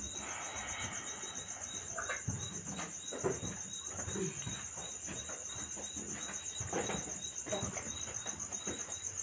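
Crickets chirping in a steady, high, pulsing trill, with faint scattered rustles and light knocks underneath.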